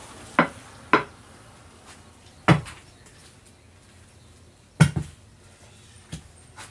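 Iron tyre levers clanking against a steel wheel rim as a tempo tyre's bead is levered onto the rim: about six sharp, irregularly spaced metal knocks, the loudest a little under five seconds in.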